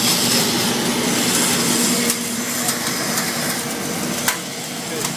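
Industrial 3500 kW biomass sawdust burner running at full fire: a steady loud rushing noise of fan and flame with a faint hum under it. Two sharp clicks come in the second half.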